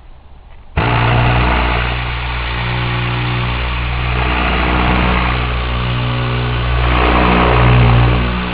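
Tornador compressed-air cleaning gun blowing, starting suddenly under a second in: a loud, steady hiss of air over a low buzz from the whipping nozzle tube, swelling and easing slightly as it is worked.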